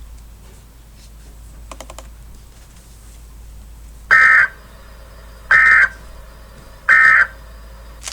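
Emergency Alert System end-of-message data tones: three short, identical digital bursts about a second and a half apart, beginning about four seconds in after faint background noise. They mark the close of the alert.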